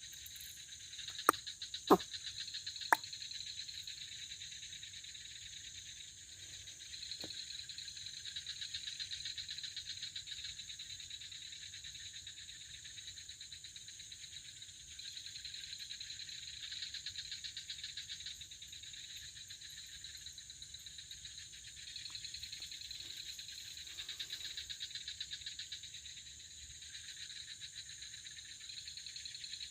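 Night chorus of insects: a steady, finely pulsing high trill that swells and fades in waves every few seconds. Three sharp clicks sound about a second apart near the start.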